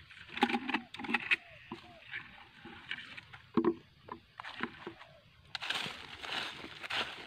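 Footsteps crunching on dry leaf litter and brushing through low undergrowth, in uneven bursts, with a longer stretch of rustling near the end.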